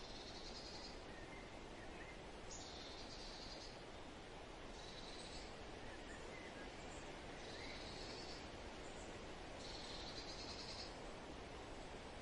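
Outdoor nature ambience: a steady low hiss with a high, buzzy trill of about a second repeating five times, every two seconds or so, and a few faint short chirps between.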